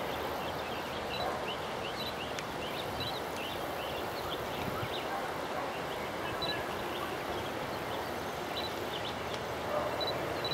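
Steady rush of a distant airliner's jet engines on approach, with many short, high bird chirps scattered over it.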